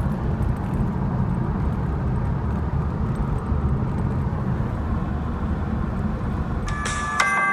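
Steady low road and engine rumble inside a moving Jeep's cabin. Near the end, electronic music with bright beeping notes starts over it.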